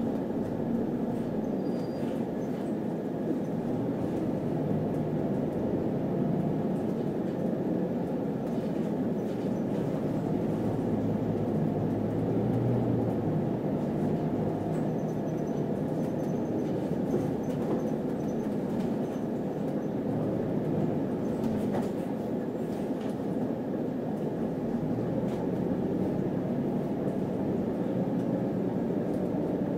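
Steady engine and road rumble of a city bus under way, heard from inside the cabin.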